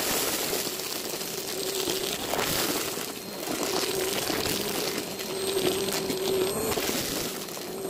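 Upright vacuum cleaner running over a shaggy rug, its motor humming while it crackles and crunches, sucking up confetti, foil streamers and balloon scraps.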